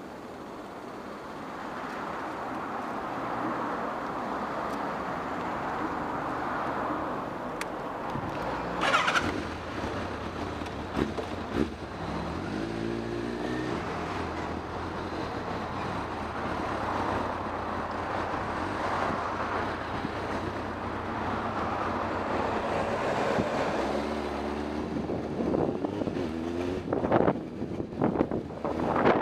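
Motorcycle engine running as the bike pulls away and gathers speed, its pitch rising twice as it revs up. A short knock comes about nine seconds in, and wind buffets the microphone near the end.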